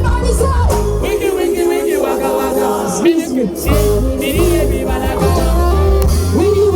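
Amplified music with a strong bass line and sung vocals, played over a sound system.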